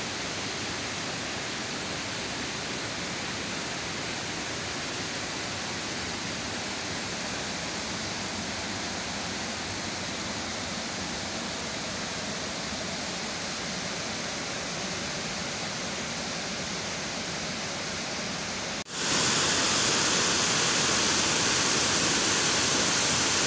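Steady roar of river water pouring over a concrete weir. About 19 seconds in, the sound cuts off for an instant and comes back louder and brighter.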